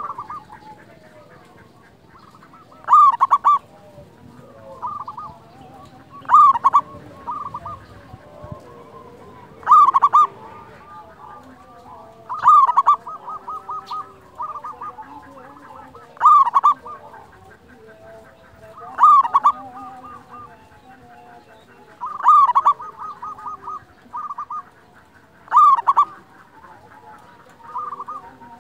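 Local-type zebra dove (perkutut) singing its cooing song. A loud phrase comes about every three seconds, each a short cluster of rapid cooing notes, with quieter runs of quick notes between phrases.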